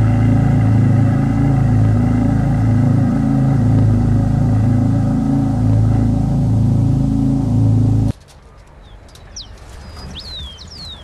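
A loud, low, wavering drone that cuts off suddenly about eight seconds in. After it, a quiet outdoor background with a few birds chirping.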